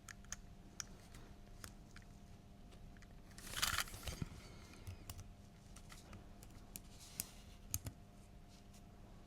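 Faint, sparse small clicks and taps of tools on tiny metal parts, as the carbon-brush springs are worked back into a Märklin model locomotive motor. There is a short rustle about three and a half seconds in, over a faint steady hum.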